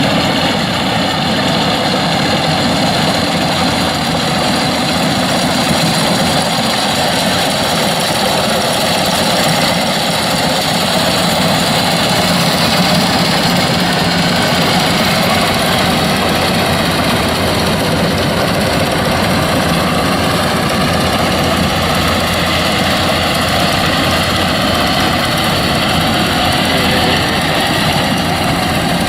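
Rice combine harvesters running steadily as they cut rice, a loud, even engine and machinery noise.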